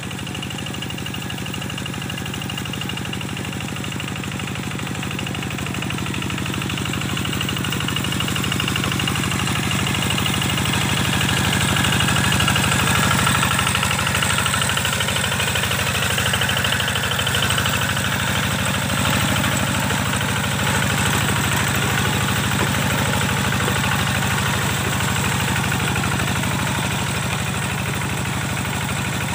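Kubota diesel tractor engine running steadily while working a wet paddy field. It grows louder over the first dozen seconds or so, then holds steady.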